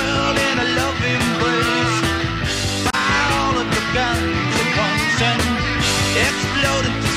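Rock music with a steady drum beat and a singing voice, fading out just after.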